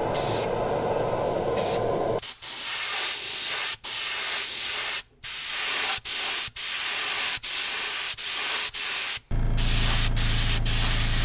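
Paint spraying in a run of short bursts, each cut off sharply, after about two seconds of a lower, rougher noise. About nine seconds in, the spray runs on without a break and a low steady hum joins underneath.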